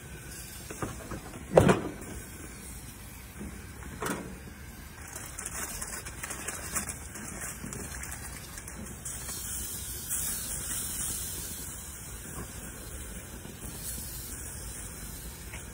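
Skewered steak sizzling on a gas grill over the burner flames, a steady hiss. A sharp knock about a second and a half in, the loudest sound, and a smaller one about four seconds in.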